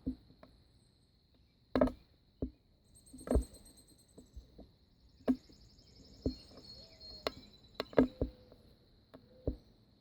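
Steady high-pitched insect trill, typical of crickets, with a scattering of irregular sharp knocks and clicks close by that are louder than the trill.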